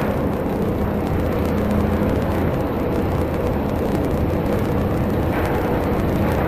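CNC gantry drilling and milling machine running: a steady, loud mechanical noise over a constant low hum, with a brief swell of hiss about five seconds in.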